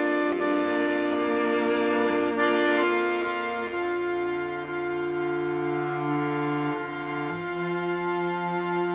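Accordion playing slow, sustained chords, with the chord changing twice: a few seconds in and again near the end.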